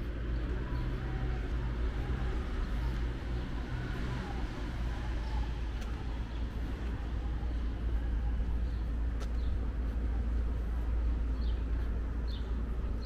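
Steady low rumble of city traffic, with a vehicle engine humming for the first few seconds. A few short bird chirps come near the end.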